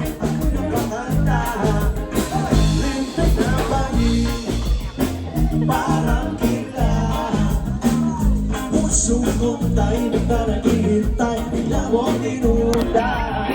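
Background pop song with a female-style sung melody over guitar, bass and a steady beat.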